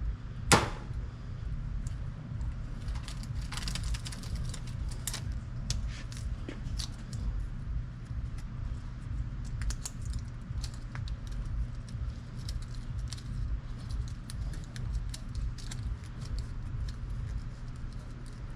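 A sharp snap about half a second in, then scattered small clicks and rattles of parts being handled and worked loose inside a vending machine, over a steady low hum.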